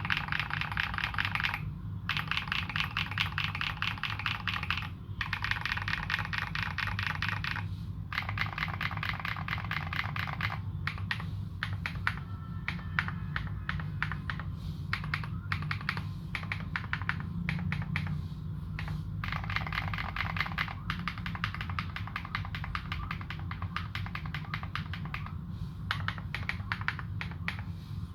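Fast typing on a Morgan65 custom mechanical keyboard with fully modded Holy Panda tactile switches and SA keycaps, a dense run of key clacks broken by brief pauses every few seconds.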